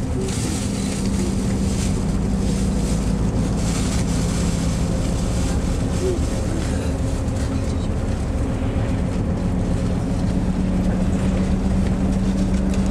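Tour bus engine and road noise heard from inside the cabin while driving: a steady low drone over a hiss of tyres and wind, the drone a little stronger in the second half.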